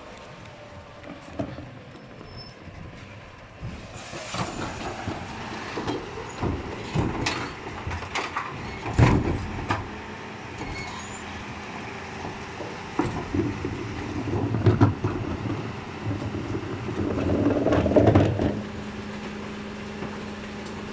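Mercedes refuse truck running at the kerb while its Zoeller rear bin lift raises and tips a wheelie bin. A string of sharp knocks and clatters comes from the bin banging against the lifter. Near the end a louder surge of machinery settles into a steady hum.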